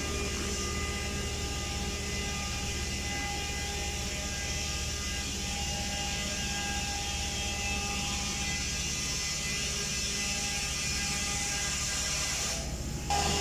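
Isuzu 6BG1 six-cylinder diesel engine idling steadily, a low hum with a fast, even clatter. The fuel leak under its separator has just been sealed, so it runs on without dying.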